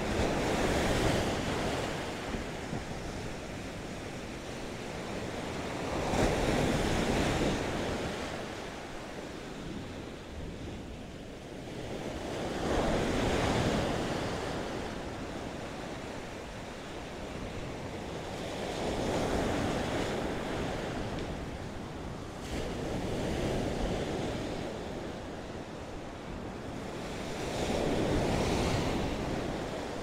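Atlantic Ocean surf breaking on the beach, the rush of each wave swelling and fading about every five to six seconds. Wind buffets the microphone throughout.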